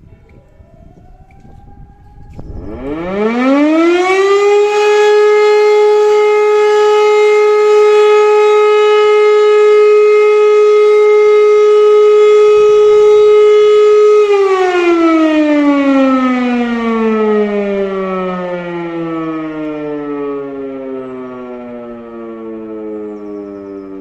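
E57 electromechanical motor siren sounding the short steady test tone. It spins up about two and a half seconds in, holds one loud steady howl for about ten seconds, then winds down with slowly falling pitch as the rotor coasts, still sounding near the end.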